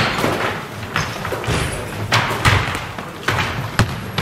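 Basketballs bouncing on a wooden gym floor: irregular dribble thuds, the loudest right at the start.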